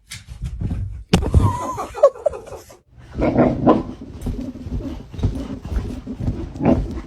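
A dog vocalising: low growling grumbles, with a short higher whine and a sharp knock about a second in.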